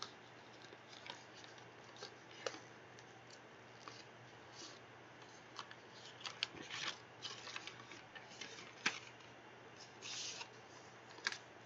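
Faint rustling and crinkling of packaging being torn open, with scattered light clicks and taps as small items are handled, over a faint steady hum.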